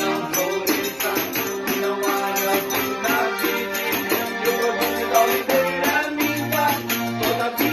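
Band music with a steady beat, a shaker or tambourine keeping time over sustained pitched instruments.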